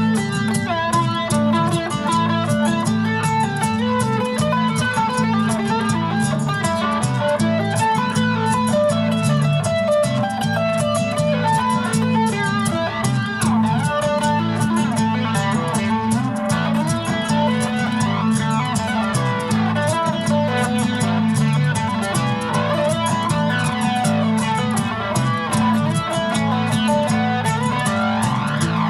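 Nylon-string guitar played in an instrumental passage: single picked notes over a steady, repeating low bass figure.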